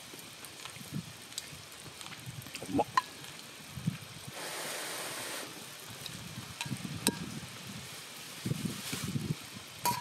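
Wooden chopsticks clinking against a stainless steel cup a few times as food is lifted from a hot pot, over a faint sizzle and crackle from the pot on a wood fire. A short hiss comes about halfway through.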